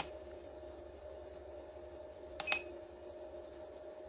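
Keypad of a YH800-3 digital readout console being pressed: a key click with a short high electronic beep right at the start and again about two and a half seconds in, over a steady faint hum.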